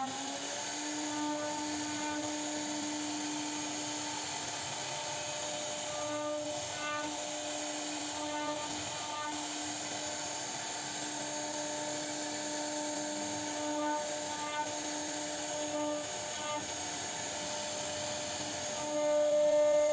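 CNC router spindle whining at a steady pitch as it carves wood, the tone dropping out briefly here and there and swelling near the end.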